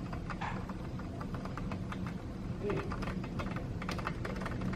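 Heavy rain falling steadily, with many quick irregular drips ticking and tapping on a hard surface close by.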